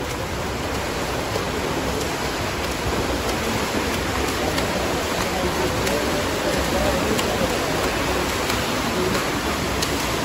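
Steady wash of splashing water from swimmers in a pool, with faint voices underneath.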